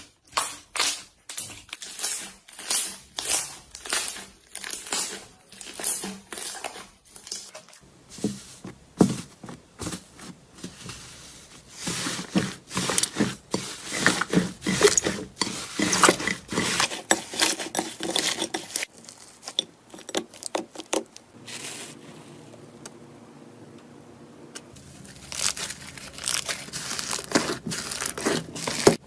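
Slime being handled or stirred, making a run of irregular sticky clicks and crackles. The clicks come about two a second at first and grow denser after about eight seconds, with a quieter spell shortly before the end.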